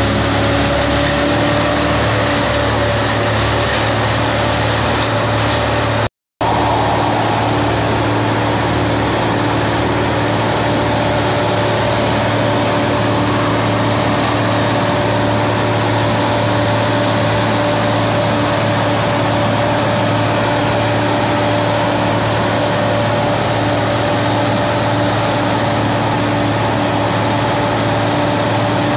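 Wood chipper's engine running steadily at speed: a loud, continuous drone with an even pitch. The sound cuts out for a split second about six seconds in.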